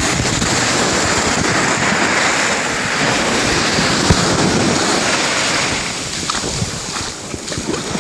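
Steady rush of wind on the microphone and sea water splashing during a ride out on the sea. It eases a little near the end, with a few short knocks.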